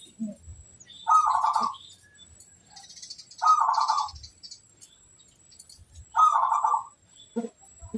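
Zebra dove (perkutut) cooing: three short trilled coo phrases about two and a half seconds apart, with faint higher chirps between them and a few soft knocks near the end.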